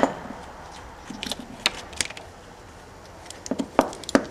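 Close handling noises: a sharp click at the start, then scattered small clicks and rustles as fingers work heat-shrink tubing onto the end of a wire and parts shift on the bench.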